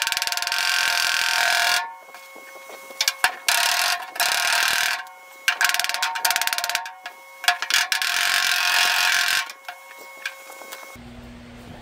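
A power tool works the sheet-steel roof panel of a 1948 Willys truck in repeated loud bursts of one to two seconds, with a few short blips between them, as folds and creases are worked out of the metal.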